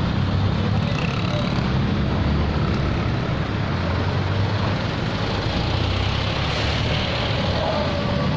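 Road traffic: a steady low engine rumble from cars and trucks moving past close by.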